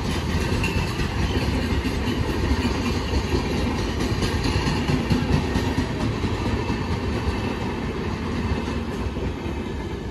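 Passenger train of Indian Railways LHB coaches passing close by: a steady rush of wheels on rail with repeated clicks as the wheels cross rail joints, easing off slightly near the end as the last coach goes by.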